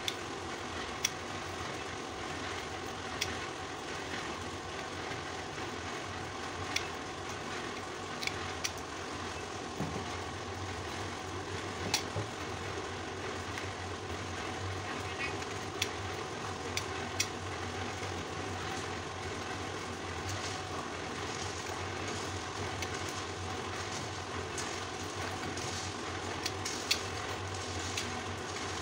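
Utility-knife blade cutting into a bamboo cage panel, with small sharp clicks every second or two, over a steady background hum.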